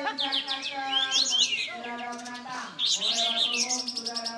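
A kapas tembak songbird singing energetically, a fast run of rising and falling chirps and whistles that shows off its varied learned repertoire. Under it runs a lower, steady, held tone that briefly breaks off about halfway through.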